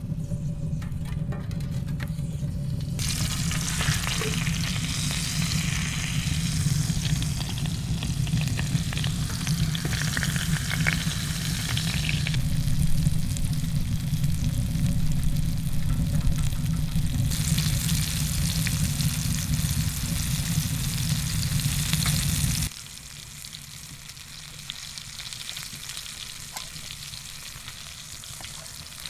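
Food sizzling as it fries in a pan, a steady crackling hiss. A heavy low wind rumble on the microphone underlies it and cuts off abruptly about three-quarters of the way through, leaving the frying alone.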